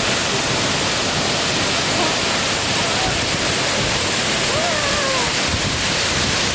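The Todoroki Waterfall's falling water, heard close to the base of the falls as a loud, steady rush.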